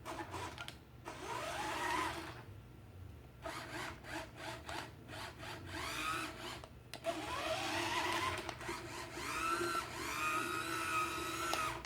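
Small battery electric motor and plastic gears of a remote-control toy train running in three short runs, a whine that rises in pitch as each run picks up speed.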